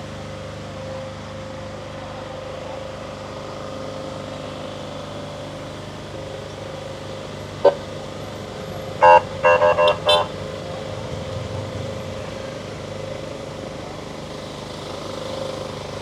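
Steady street noise with a low traffic hum. A vehicle horn gives one short toot about eight seconds in, then a quick run of about five honks around nine to ten seconds in.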